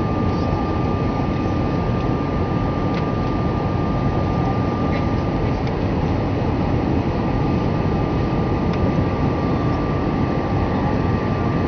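Steady cabin noise of an Airbus A319-111 in its climb after take-off: the CFM56 turbofans and the rush of air blend into an even low rumble, with a thin steady hum on top.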